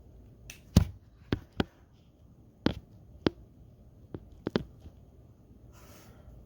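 Sharp separate clicks and taps from Pokémon trading cards being handled, about eight in all, with a soft card rustle near the end.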